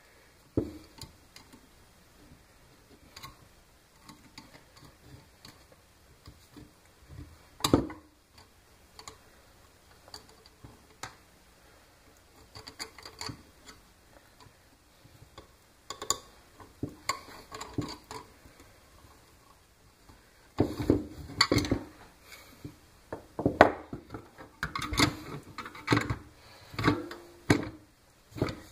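Small objects and tools being handled and set down on a wooden workbench: scattered clicks and knocks, with one louder knock about eight seconds in, and busier clattering from about twenty seconds in.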